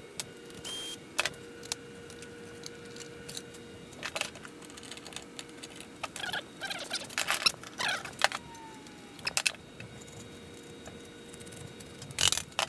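Thin aluminum sheet-metal airbox parts and small hand tools being handled, making scattered clinks, rattles and clicks in short irregular bursts. The loudest clatter comes near the end.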